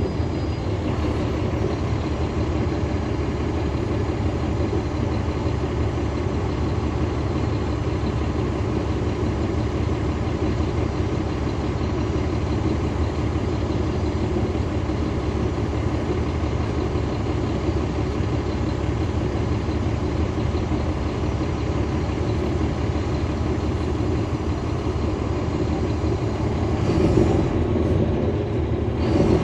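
Cabin sound inside a 2009 NABI 416.15 40-foot transit bus: its Caterpillar C13 ACERT diesel engine running through a ZF Ecomat automatic transmission, with a steady rumble of engine and road noise. A couple of louder bumps come near the end.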